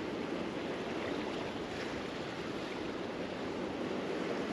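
Steady rushing of ocean water, waves and current, with no distinct splashes or other events.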